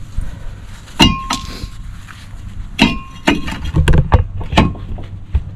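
A series of sharp metallic knocks and clinks from parts being handled at the brake rotor, about eight in a few seconds, two of them followed by a short ringing tone.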